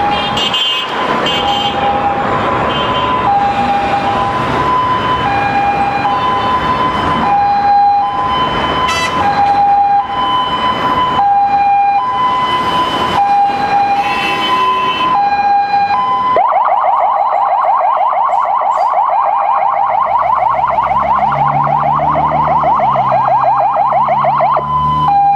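Emergency vehicle siren on an ambulance run, sounding a two-tone hi-lo wail that swaps between its two notes about every three-quarters of a second, over road and wind noise. About sixteen seconds in, it switches to a fast warble, then goes back to the two-tone near the end.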